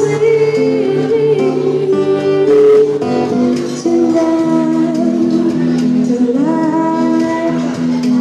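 Live band music: a woman singing a slow melody into a microphone over a strummed acoustic guitar.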